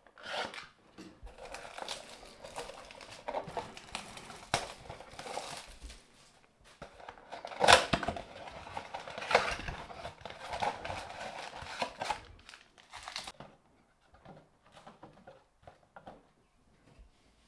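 Cardboard trading-card blaster box being slit open and its flaps pulled apart, with the card packs taken out: irregular rustling and crinkling of cardboard and foil wrappers. Two louder tearing sounds come about halfway through.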